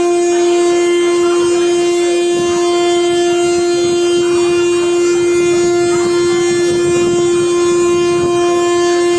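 WAP-7 electric locomotive's horn sounding one long, loud blast held on a single steady note, the signal before the train pulls out.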